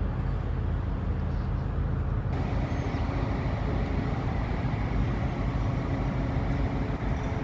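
Steady low rumble of a vehicle engine running, with a hiss that comes in suddenly about two seconds in.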